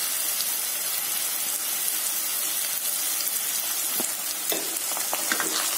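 Sliced onions and green capsicum sizzling steadily in hot oil in a wok as tomato sauce is spooned over them, with a few light clicks about four seconds in and again near the end.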